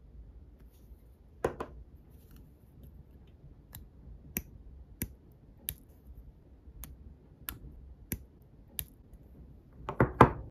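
A string of sharp light clicks, roughly one every two-thirds of a second, with a louder one early and a quick cluster of louder ones near the end: small hand tools and plastic parts of a scale-model spoked wheel being worked by hand.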